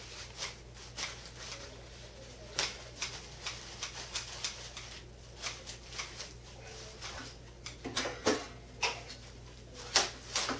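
Plastic oven roasting bag crinkling and rustling in irregular bursts as it is pulled and torn open off roasted ducks in a metal roasting pan, with the loudest crackles near the end.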